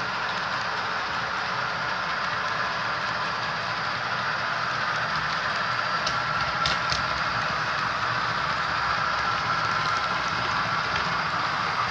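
HO-scale model freight train rolling along the track, a steady hiss of small metal wheels on model rail that grows a little louder as the cars come closer. A few faint clicks come about halfway.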